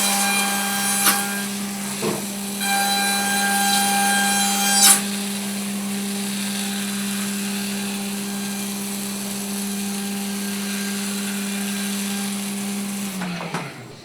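CNC milling machine spindle running at a steady pitch, with the cutter biting into material in two passes of about one and two seconds early on. It then runs on without cutting and winds down to a stop near the end.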